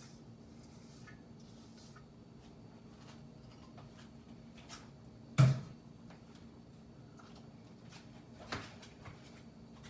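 Kitchen handling sounds over a faint steady hum: one sharp loud knock about halfway through, as of a dish or utensil set down on a counter, and a fainter knock near the end.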